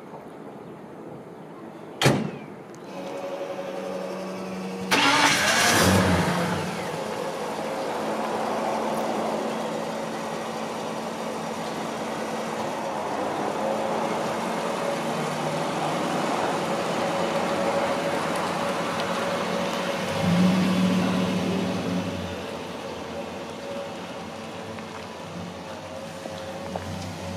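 A single sharp bang, then the ute's Ford 302 V8 starts about five seconds in with a loud burst of revs and settles into a steady run. It swells again around twenty seconds in as the truck pulls off, then grows quieter as it moves away. A constant whine from its electric fuel pump runs under the engine.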